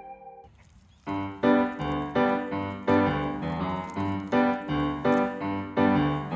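Background music: a gentle keyboard tune in a repeating pattern of notes starts about a second in, after the previous track fades out.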